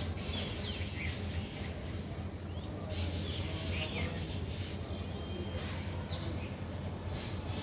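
Small birds chirping in short, scattered calls that slide up or down in pitch, over a steady low rumble.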